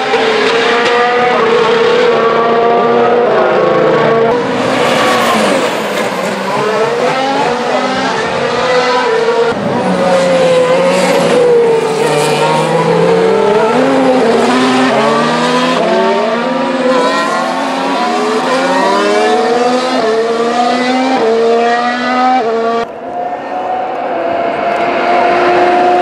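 2017 Formula 1 cars' turbocharged V6 hybrid engines at racing speed, several cars passing one after another, their pitch climbing and falling in steps. About 23 seconds in, the sound changes abruptly to a single steadier engine note.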